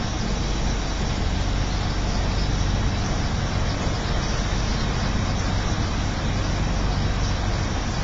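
Tour boat under way: its motor running in a steady low hum, with a constant rush of water and wind noise.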